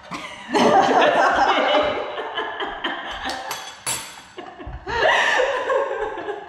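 Two women laughing hard together, starting about half a second in, easing off briefly and breaking out again near the end. A couple of sharp clicks sound about halfway through.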